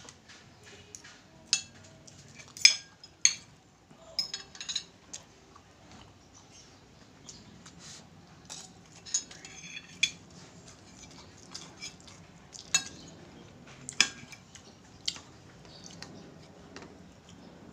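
Metal spoon and fork clinking and scraping against a ceramic plate and a plastic container while eating, in irregular sharp clinks, the loudest about three seconds in and again near fourteen seconds.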